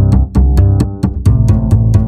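Background music with a heavy bass line and a steady beat of sharp percussive hits, about four a second.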